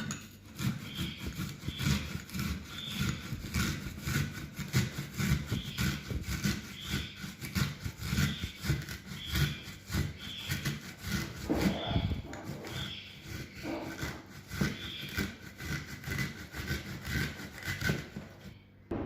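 An onion being grated by hand on a fine grater: rapid, repeated rasping strokes that stop near the end.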